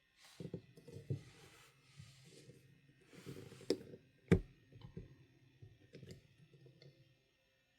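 Handling noise from 3D-printed plastic planter pots being moved about: rustling and light clicks, with a sharp knock a little past the middle.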